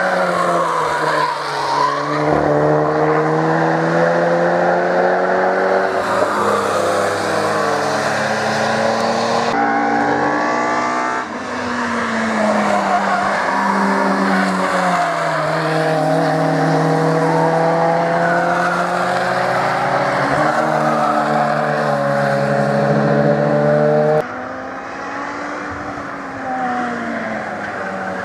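Cars driven hard past one after another, their engines revving up and dropping back through gear changes. The sound switches abruptly several times from one car to the next.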